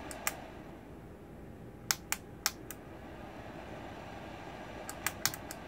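Front-panel power switch of a UNI-T UTP305 bench power supply clicking as it is pressed and released, cycling the supply on and off to test for output spikes. There is a single click, then two quick pairs of clicks around two seconds in, and a rapid run of clicks near the end.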